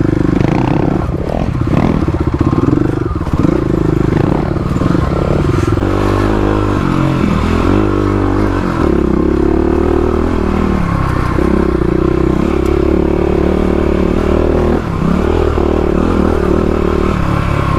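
Kawasaki KLX351 dirt bike's single-cylinder engine running under the rider, its revs rising and falling with the throttle over rough trail, with some clatter from the bike over rocks.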